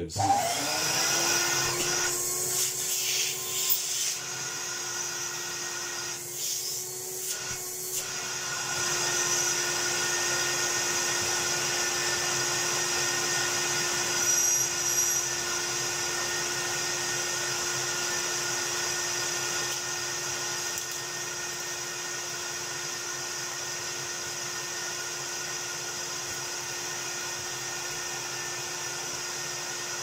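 Miele S220 vacuum cleaner motor switching on and spinning up to a steady high-pitched whine with rushing air. The pitch is raised because it is pulling through a Hoover Vortex triple-cyclone unit that restricts the airflow. A crevice tool sucks up cat hair, with rougher rushing stretches in the first few seconds, around six to eight seconds in and around fifteen seconds in.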